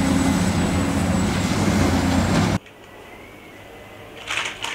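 A loud, steady engine-like hum and rumble that cuts off suddenly about two and a half seconds in. The rest is much quieter, with a few light clicks near the end.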